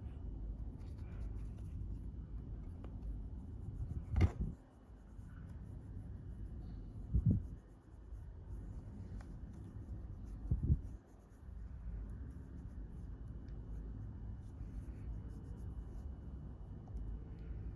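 Hands rubbing and handling small objects on a surface, with three dull knocks about four, seven and ten and a half seconds in, over a low steady hum.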